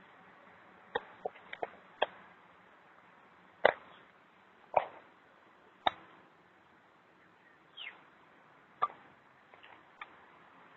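About ten sharp, short clicks and taps at irregular intervals over faint background hiss, the loudest a little past a third of the way in, with one brief falling chirp-like sound about three quarters of the way through.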